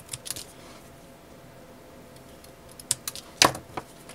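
Scissors snipping a small spot out of black ribbon, a few short clicks near the start. This is followed by a handful of sharper clicks and a louder knock about three and a half seconds in as the scissors are put down on the table.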